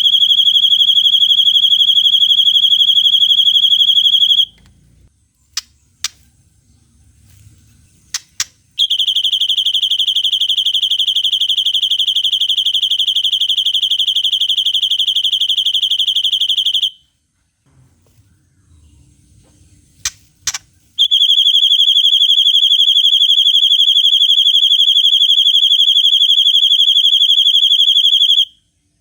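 White-rumped shama (murai batu) singing long, unbroken, high-pitched buzzing trills in the 'cililin' style, three of them, the second and third each lasting about eight seconds. Between the trills come a few short sharp chip notes.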